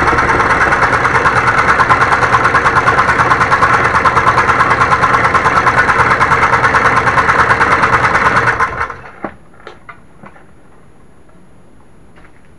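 Homemade scroll saw running with a fast, even reciprocating rhythm, then shut off about nine seconds in, followed by a few faint clicks.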